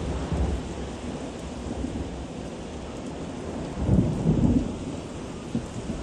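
Storm wind and heavy rain, a continuous low rumble with a hiss of rain above it, rising to a louder gust about four seconds in.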